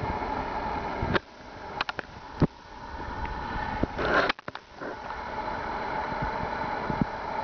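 A steady mechanical hum and hiss, broken by a few brief knocks about one to two and a half seconds in and a short louder rush followed by a dip about four seconds in.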